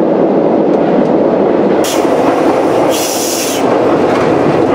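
Sprague-Thomson metro train running through the tunnel, a loud steady rumble of wheels and motors heard from on board, with two short bursts of hiss about two and three seconds in.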